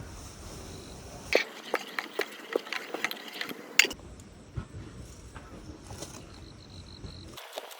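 Spoon clinking and scraping against a pot while sugar is stirred into hot milk: a scatter of light knocks, thickest in the first half.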